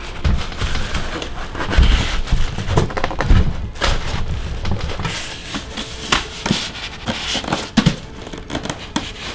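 Packaging being handled as an item is worked out of its box: irregular crackling and rustling with scattered knocks and low thumps.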